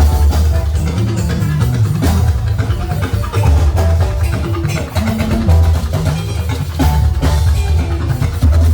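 Music with drums and a heavy bass line, loud and steady.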